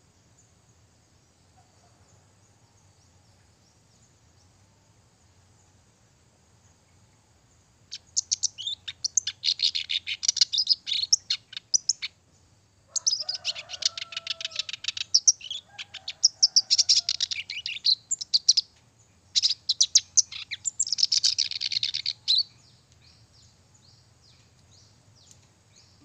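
A kerak basi (reed warbler) singing: three long runs of rapid, harsh, chattering notes with short pauses between them, starting about a third of the way in. Faint scattered calls follow near the end.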